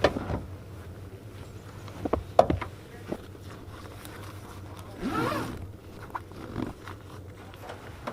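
Gear being handled: a few sharp clicks and knocks, then a longer scraping pull about five seconds in.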